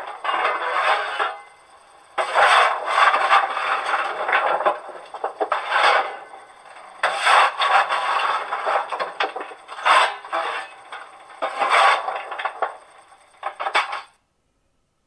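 Coal-shovelling sound effect from a BR 64 model steam locomotive's ESU LokSound 5 XL sound decoder, played through the model's small speaker: a series of scraping, rattling shovel strokes, about one every one and a half to two seconds, over a thin steady high tone, stopping near the end.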